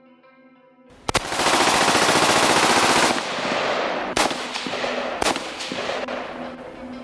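Machine-gun fire sound effect: a long burst of rapid shots starting about a second in and lasting about two seconds. It dies away with two more single shots, over quiet background music.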